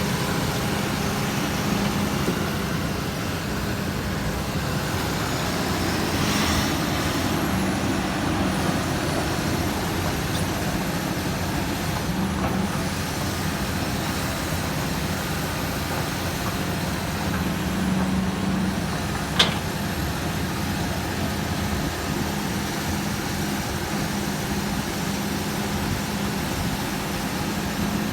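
Hydraulic excavator's diesel engine running steadily, with a single short sharp clack about two-thirds of the way through.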